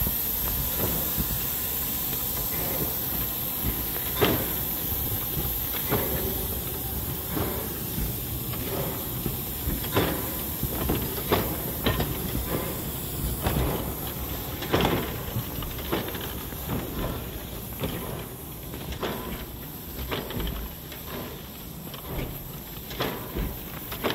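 Early replica steam locomotive hissing steam, with a series of sharp, uneven exhaust chuffs that begin a few seconds in and come closer together near the end. The high hiss fades about halfway through.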